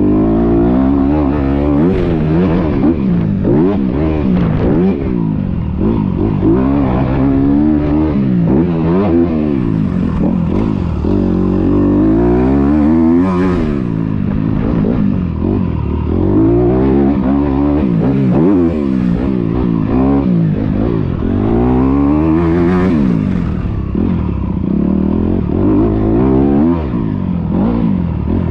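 Motocross dirt bike engine revving hard, its pitch climbing and falling again and again as the rider accelerates, shifts and rolls off around the track, picked up close from the rider's chest.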